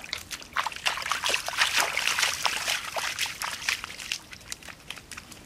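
Rubber boots squelching and splashing through wet mud and shallow puddles: a quick run of short wet clicks, busiest in the middle and thinning out near the end.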